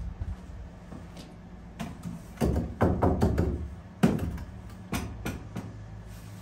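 A series of sharp knocks and clatters from objects being handled and bumped, most of them in the middle of the stretch, over a low steady hum.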